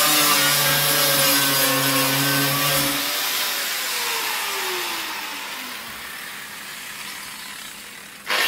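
Angle grinder grinding down welds on a car's steel floor panel. About three seconds in it is switched off, and its whine falls in pitch as the disc spins down. Just before the end it is switched on again and spins back up with a sharp rise in level.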